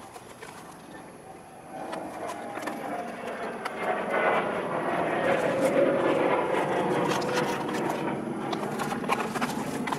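A distant passing engine swells up about two seconds in and slowly fades toward the end, over light clicks and rustles of cardboard and plastic packaging being handled.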